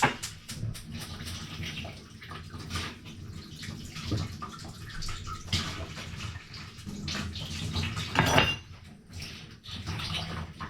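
Water splashing in a kitchen with clinks and knocks of dishes or utensils, a sharp knock at the start and a louder clatter about eight seconds in.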